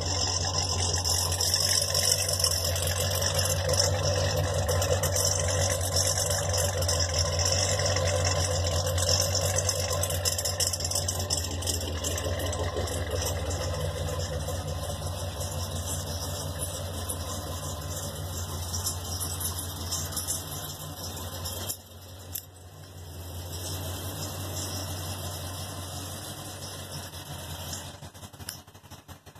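1963 Mercury Marauder's 390 V8 with a four-barrel carburettor and fender-well headers, idling with a steady, lumpy beat. It grows somewhat quieter in the second half, with a short dip about three-quarters of the way through.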